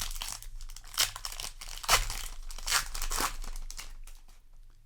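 Plastic booster pack wrapper crinkling and tearing as it is handled and opened: a run of sharp crackles that dies away near the end.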